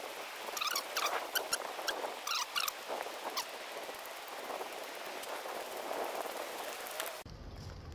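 Footsteps crunching and rustling on a wet, leaf-strewn woodland track, with a run of sharp crunches in the first few seconds. About seven seconds in the sound cuts abruptly to a low steady hum.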